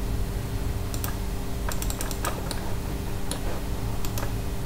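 Irregular clicks of a computer mouse and keyboard, scattered a few to the second, over a steady low hum.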